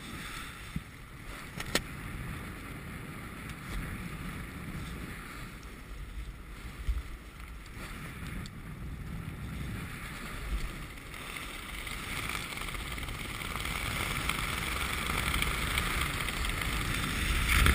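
Wind rushing over a helmet camera's microphone in flight under an open ram-air parachute canopy (Sabre 2 150), growing louder over the last several seconds. Two sharp clicks come within the first two seconds.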